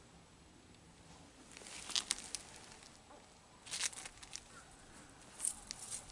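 A stray cat rolling over on its back on rough asphalt, its fur scraping the grit, in three short bursts of scratchy rustling about two, four and five and a half seconds in.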